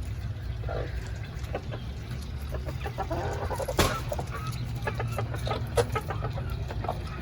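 Chickens clucking in short scattered calls, busiest about halfway through, with a sharp tap about halfway through and another near the end, over a steady low rumble.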